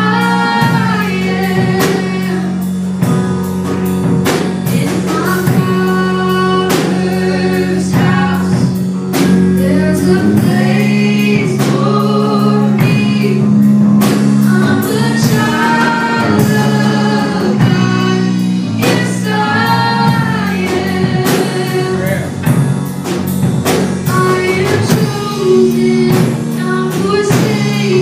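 A worship song played live: a lead singer with acoustic guitar over sustained keyboard chords, with several voices singing along.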